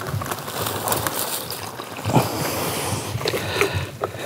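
Water poured from a plastic jug into a pipe ring lined with a plastic bag, splashing and sloshing as the ring fills for a soil infiltration test.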